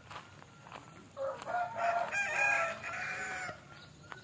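A rooster crowing once, a single long call of about two seconds that starts about a second in.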